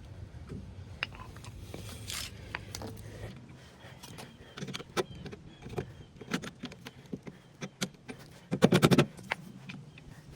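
Scattered clicks and taps of metal tools and parts being handled, over a steady low hum that stops about three seconds in. Near the end comes a short, loud, rapid rattle.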